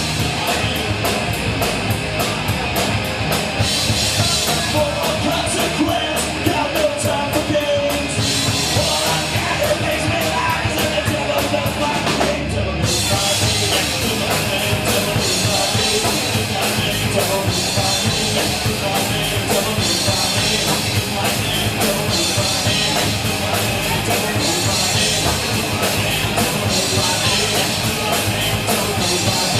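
Loud rock music from a band with a driving drum kit and rapid cymbal hits; the arrangement shifts about 13 seconds in.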